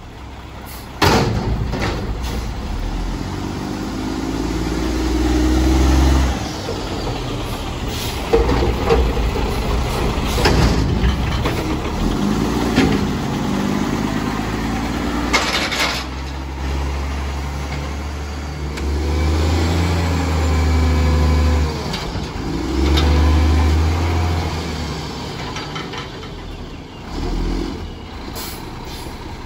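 Mack MR front-loader garbage truck's diesel engine revving hard in three surges, the middle one the longest, between stretches of steady running, with several sharp bangs.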